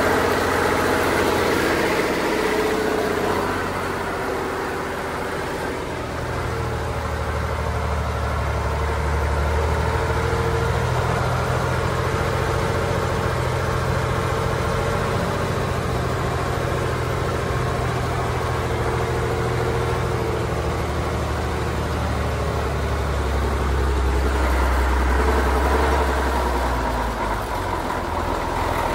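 Praga V3S military truck's air-cooled Tatra six-cylinder diesel engine pulling steadily along a rough dirt track, heard from the cab. The engine note sags briefly a few seconds in, then holds steady, and eases off again near the end.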